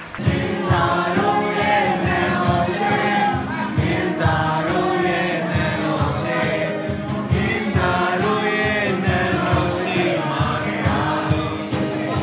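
A song with several voices singing together over accompaniment.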